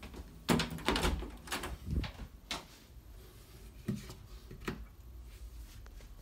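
An interior door being opened by its knob, with a run of clicks and knocks, then a wall light switch flicked about four seconds in.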